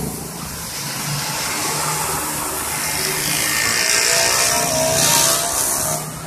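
A road vehicle passing close by: engine and tyre noise grow louder to a peak about four to five seconds in, then fall away sharply near the end.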